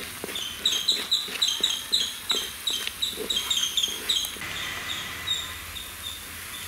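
A bird's high chirping call, short sharp notes repeated rapidly at about five a second, fading after about four seconds. Under it, faint clicks and scraping from a wooden spoon stirring masala paste in a clay pot.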